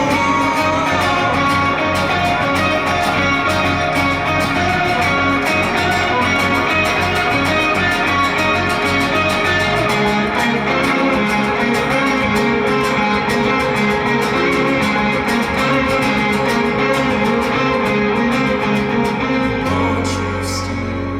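Band music, an instrumental passage with guitar. The bass line changes about halfway through and again near the end, where the music starts to fade.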